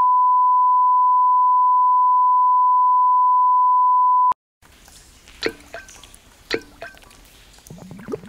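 Steady 1 kHz test tone of the kind run with television colour bars, cutting off sharply about four seconds in. A few soft sharp clicks follow over faint hiss, with a quick run of low taps near the end.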